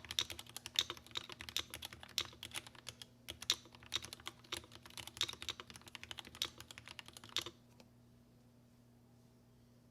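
Typing on a Tokyo60 mechanical keyboard with Gateron Black Ink v2 linear switches lubed with Krytox 205g0: fast, irregular keystrokes. The typing stops about seven and a half seconds in, leaving a faint steady hum.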